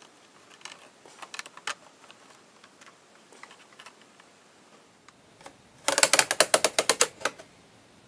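Light clicks and taps of thin wooden strips being pressed against a model hull's frames, then, about six seconds in, a quick run of about fifteen sharp ratchet-like clicks lasting just over a second.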